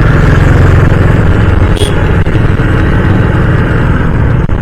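Honda CD 110 single-cylinder motorcycle riding in traffic: the engine running under steady load, mixed with heavy wind rumble on the microphone. A brief high-pitched sound about two seconds in.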